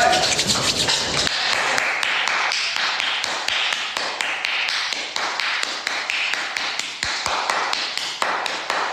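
Bare hands brushing and slapping palm against palm in quick repeated strokes close to the microphone, several strokes a second.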